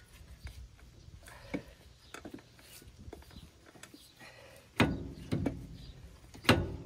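Outer wheel bearing being worked by hand into a semi truck's steer axle hub, a very tight fit. Scattered light knocks of the metal parts, with two sharper knocks in the second half.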